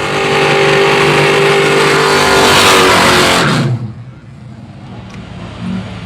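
Car engine revved high and held, with a loud hiss over it, then the revs drop away quickly about three and a half seconds in.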